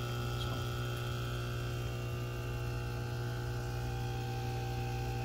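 Steady low electric hum of running aquarium equipment, with several fainter steady higher tones over it.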